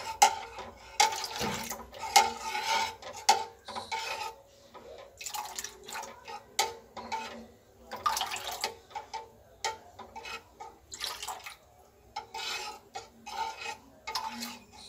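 Dissolved custard powder being poured a little at a time into hot milk in a pan, while a spoon stirs and scrapes against the pan in short, irregular strokes.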